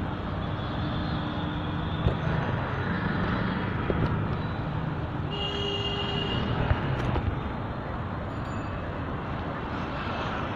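Road traffic on a busy city street: the steady running of passing vehicle engines, with a brief high tone about five seconds in.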